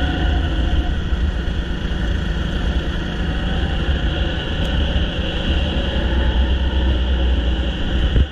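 Go-kart engine running steadily at speed, heard from on board the kart, with a heavy low rumble underneath.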